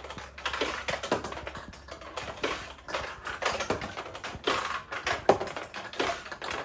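1972 Nishijin Model B pachinko machine in play: the hand-lever launcher flicks steel balls up the playfield, where they rattle off the metal pins in a quick, irregular run of sharp clicks.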